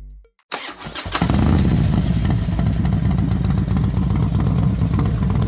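Motorcycle engine running with a deep, steady note that starts abruptly about a second in, after a few short clicks.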